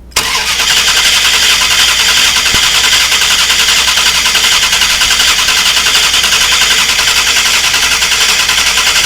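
A 2000 Dodge Durango's 5.9-litre V8 is cranking on its starter for about nine seconds, with a steady rapid rhythmic pulsing. It starts abruptly and stops as the switch is released. This is a no-start engine being cranked for a fuel pressure test, and the fuel pressure holds at about 50 psi while it cranks.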